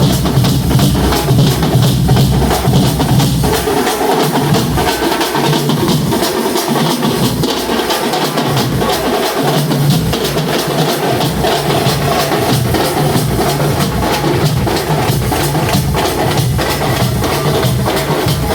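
Drums beaten in a fast, steady rhythm of many strikes a second, with deep booming beats underneath.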